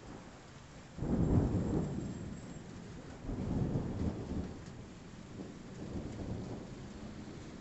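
Thunder rolling over steady rain: a sudden low rumble about a second in, swelling again around three seconds, then fading in softer rolls.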